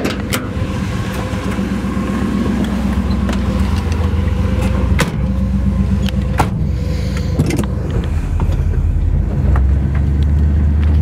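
The 1967 Camaro RS's 327 small-block V8, with headers, running steadily as the car pulls away, heard from the cabin; its rumble grows louder near the end. A few sharp clicks and clunks come from the door latch and handling, the first as the door handle is pulled.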